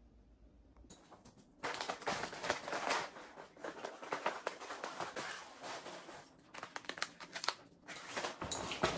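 Plastic snack wrappers and bags crinkling as packaged food is handled and packed into a food bag. It starts about a second and a half in and goes on with a couple of short pauses.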